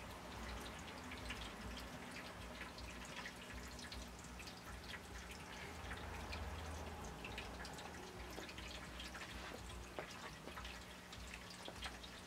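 Cats playing with a wand toy and loose packaging: light, scattered ticks and rustles, over a steady faint hum.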